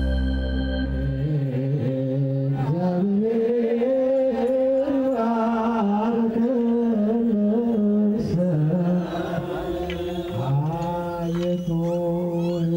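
Ethiopian Orthodox liturgical chanting: a slow melody sung in long held notes that rise and fall, breaking off briefly about eight seconds in and then resuming. The first second or so is the tail of a music sting.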